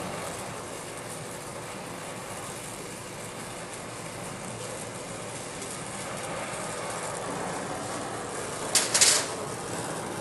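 Steady hiss of a brazing torch flame playing on copper tubing that is wrapped in a rag heat sink. A brief, louder rushing burst comes about nine seconds in.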